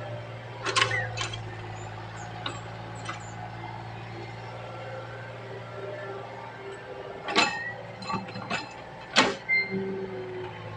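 Excavator's diesel engine running steadily, with several sharp knocks: two about a second in and a cluster of four or five near the end, the loudest about nine seconds in.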